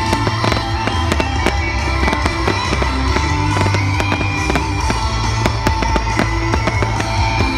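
Aerial fireworks bursting over music: a dense, irregular stream of sharp pops and bangs.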